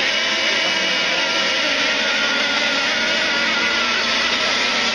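Several radio-controlled racing boats running at speed around a course, their small high-revving engines overlapping in a steady high-pitched whine.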